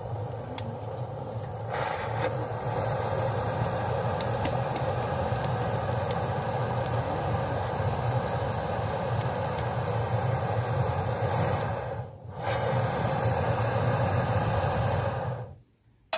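Steady roaring rush of a flame lighting the smokehouse stove, with a low hum underneath. It breaks off for a moment about twelve seconds in and cuts off suddenly near the end.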